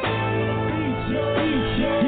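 Pop-style background music with sustained chords and repeated deep, swooping pitch slides.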